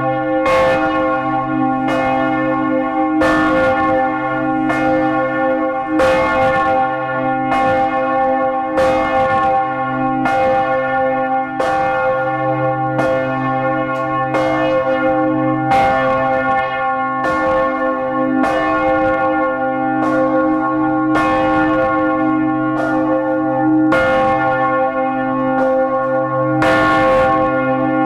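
Several large swinging church bells of St. Catherine's Church, Gdańsk, ringing together close up in the belfry. Clapper strokes come unevenly, about once a second, over a continuous ringing hum.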